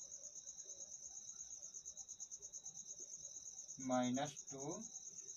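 Continuous high-pitched, fast-pulsing insect trill in the background, with a faint steady whine just below it. A man's voice speaks briefly about four seconds in.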